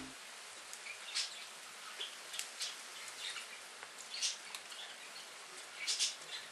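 Light rain outdoors: a faint steady hiss with scattered short ticks and taps.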